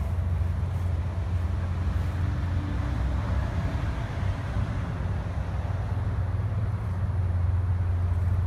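Steady low rumble of outdoor background noise. A broader hiss swells through the middle and fades again.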